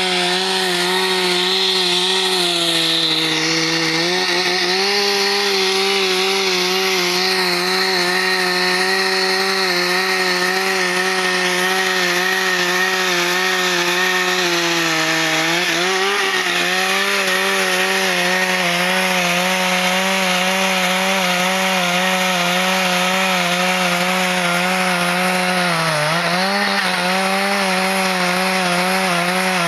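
Husqvarna two-stroke chainsaw running at high revs while cutting eucalyptus wood. Its steady high engine note dips briefly in pitch three times, about three seconds in, around the middle and near the end, as the chain is loaded and then recovers.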